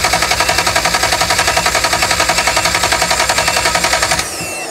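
Starter motor cranking the Ferrari engine without it firing: a fast, even chugging of about ten compression pulses a second that stops abruptly near the end. The engine is being turned over with the fuel pump unplugged to build and check oil pressure after the oil pressure sensor's loose plug terminal was crimped tight.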